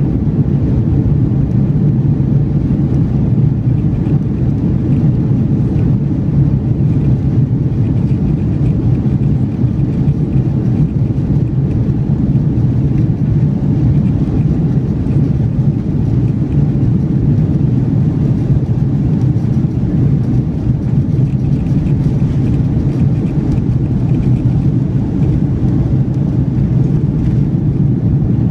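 Cabin noise of an Airbus A330-300 on its takeoff roll: its Rolls-Royce Trent 700 engines at takeoff thrust and the wheels rolling fast on the runway make one steady, loud, deep roar.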